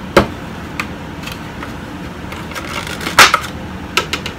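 Clear plastic packaging tray of a Funko Pop box being handled and pried open: a sharp click just after the start, a few faint ticks, then a louder crackle of plastic about three seconds in and a couple of clicks after it.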